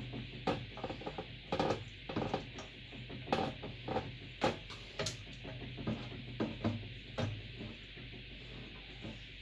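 Screwdriver working a stuck motherboard screw in a PC case: irregular metallic clicks and scrapes. The screw is turning its standoff along with it.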